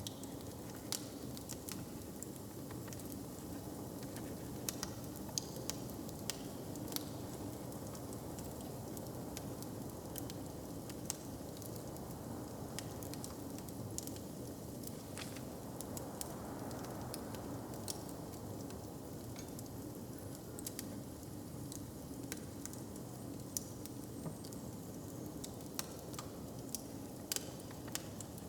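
Wood fire crackling, with scattered sharp pops over a steady low background hum.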